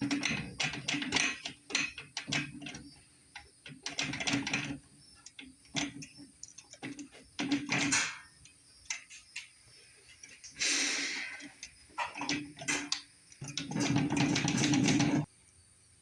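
Clicks, knocks and rattles of card dispenser units being handled and fitted into the vending machine's cabinet, with two longer sliding scrapes, one about eleven seconds in and a longer one near the end that stops sharply.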